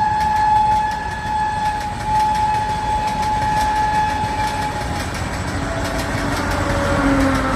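Patna Kota Express passenger train running with its locomotive horn held on one steady note for about five seconds. After that, lower tones slide slowly down, over the rumble and clickety-clack of the wheels on the rails.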